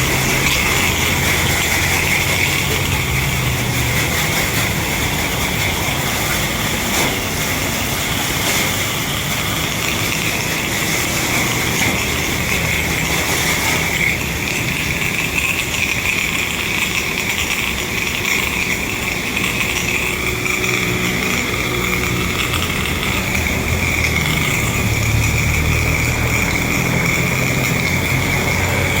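Pressure washer running steadily, its motor and pump humming under the hiss of water spraying from the hose.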